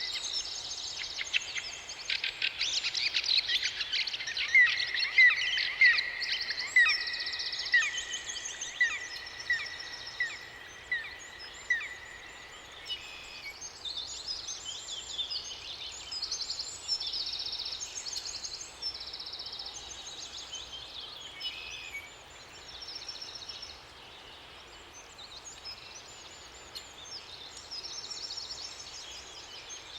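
Several songbirds singing and chirping together, over a faint steady background hiss. Early on one bird repeats a short loud call about once a second for several seconds, then stops; softer trills and chirps carry on.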